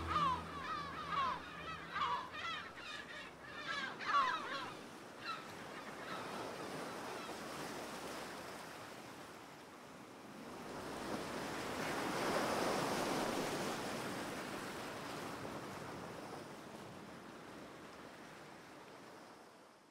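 A flock of waterbirds honking, many short calls over the first five seconds, then waves breaking on the shore, swelling about twelve seconds in and fading out at the end.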